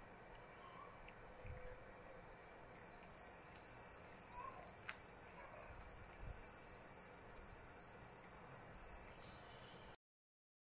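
A cricket trilling steadily at a high pitch, starting about two seconds in and cutting off abruptly near the end.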